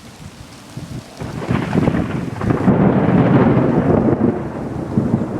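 Thunder rumbling over rain. The rumble builds about a second and a half in, is loudest around the middle, then eases slightly.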